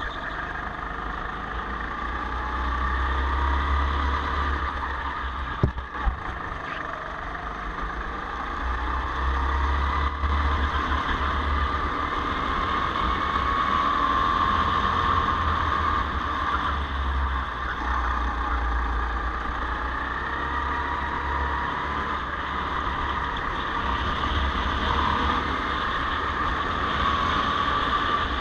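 Go-kart engine heard from the driver's seat, running hard through a lap. Its pitch rises on the straights and drops into the corners, over a low rumble. A single sharp knock comes about six seconds in.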